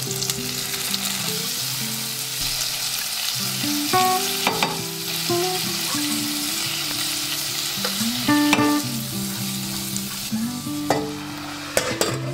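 Pointed gourd (parwal) and tomato pieces sizzling in oil in a stainless steel pressure cooker as a wooden spatula stirs them, with a steady hiss and occasional knocks of the spatula against the pot. A few sharp clacks come near the end.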